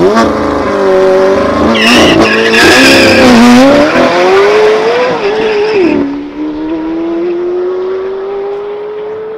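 McLaren 720S twin-turbo V8 launching at full throttle off the drag strip start line. Its pitch climbs and breaks with several quick upshifts, then it drops to a quieter, steadily rising note as the car pulls away down the track.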